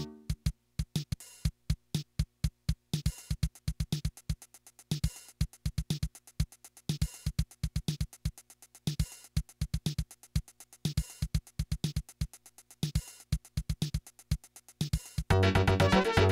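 Yamaha PS-6100 keyboard's built-in rhythm section playing a steady drum-machine beat on its own, low thumps and high ticks repeating evenly. About fifteen seconds in, keyboard chords and a bass line come in over the beat.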